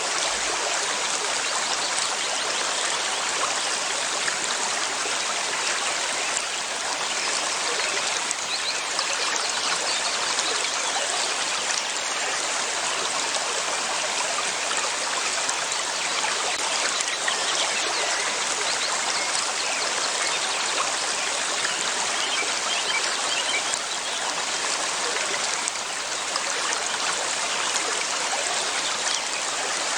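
River water flowing steadily over stones, a constant rushing and trickling.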